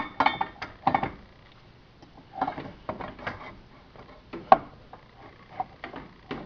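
Parts of a Schwinn 430 elliptical knocking and clanking as a part is fitted into a bracket on the base rail by hand: scattered sharp knocks in small clusters, the loudest about four and a half seconds in.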